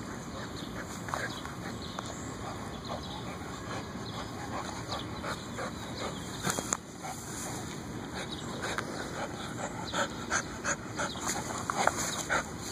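A brindle dog chewing and tearing at a torn-open basketball: irregular clicks and crunches from its bites, coming faster near the end, with the dog panting.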